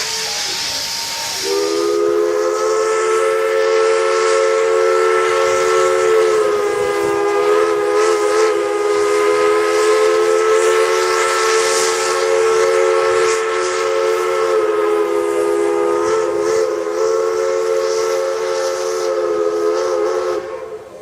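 Multi-chime steam whistle blowing one long, steady chord for nearly twenty seconds, after a short hiss of steam as the valve opens, then cutting off shortly before the end.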